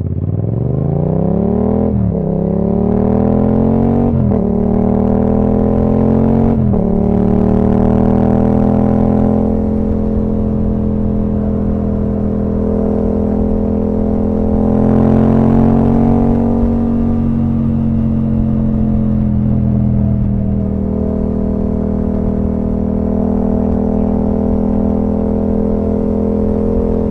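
Yamaha MT-07's parallel-twin engine through an Akrapovic full exhaust system, accelerating through the gears. The revs climb and drop sharply at three upshifts about two seconds apart. It then settles into a steady cruise with small changes of throttle.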